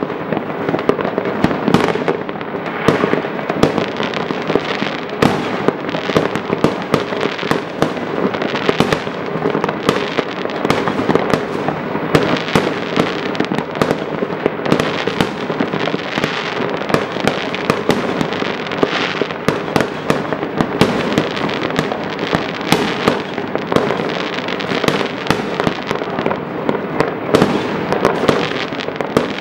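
Many fireworks going off near and far at once: a continuous din of overlapping bangs and crackles, with frequent sharper, louder reports standing out.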